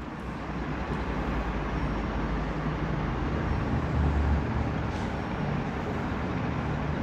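Steady background noise, a low rumble with hiss, swelling briefly about four seconds in.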